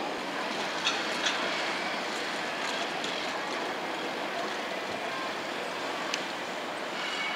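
Distant tram and city street noise heard from high above: a steady even hiss with a few sharp clicks, and a faint high tone near the end.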